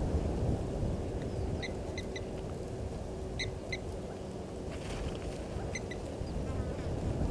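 Wind rumbling on the microphone, with short high chirps from a small animal in twos and threes every second or two.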